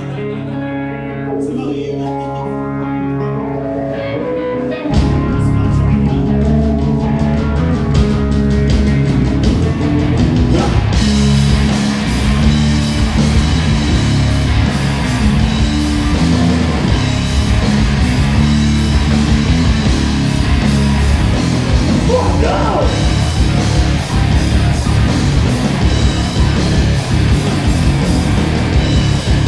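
Live rock band playing loud. An electric guitar plays a riff alone, then about five seconds in the bass and drums come in with the full band, and the cymbals crash harder from about eleven seconds on.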